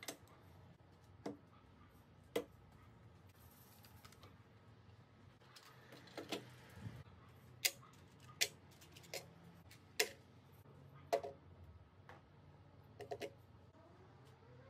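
Tools and small plastic tool cases being set down one at a time on the rubber-matted shelves of a sheet-metal tool cabinet: about a dozen separate light clicks and knocks, some in quick pairs, with quiet gaps between.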